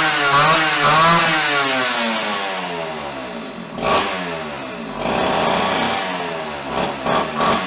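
Homelite Super XL Automatic chainsaw's two-stroke engine running unevenly: the revs waver at first, then sag with a falling pitch, with a sharp pop about four seconds in. The saw is struggling to stay running with its carburetor not yet adjusted.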